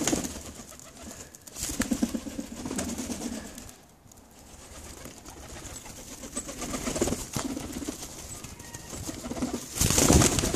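Feral rock pigeons cooing, low coos about two seconds in and again about seven seconds in, with light pecking taps at seed. Near the end comes a loud burst of wing fluttering close by, the loudest sound.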